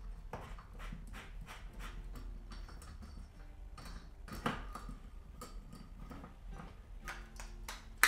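BRS titanium backpacking stove being screwed onto a gas canister and handled: irregular light clicks and taps of metal parts, with a louder tap about halfway through and a sharp click at the end.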